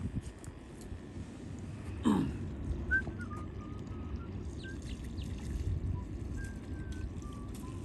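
Wind rumbling on the microphone, with faint high whistled bird notes scattered through and one louder, short call sliding steeply downward about two seconds in.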